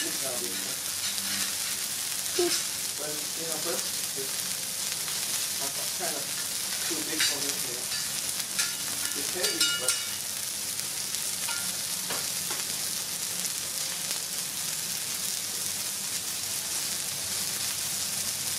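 Two smashed beef burger patties sizzling on a hot flat-top griddle: a steady frying hiss, with a few sharper pops and spits in the first ten seconds or so.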